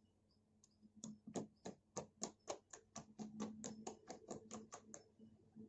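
Soft pink slime pressed and squeezed under fingers, giving a run of small clicks and pops, about four a second, that starts about a second in and stops about five seconds in.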